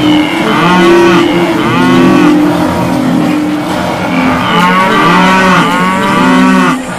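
Several cattle mooing in loud, overlapping calls that rise and fall, one after another, cutting off suddenly near the end.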